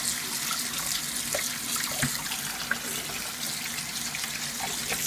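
Kitchen tap running a steady stream of water onto cooked ground beef in a plastic colander in a stainless steel sink, rinsing the fat off, with a few faint clicks.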